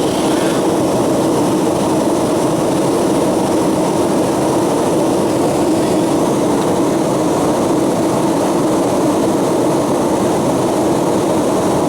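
Steady engine and air noise inside the passenger cabin of a Boeing 757-200 airborne after takeoff, an even, unbroken rush with a low hum underneath.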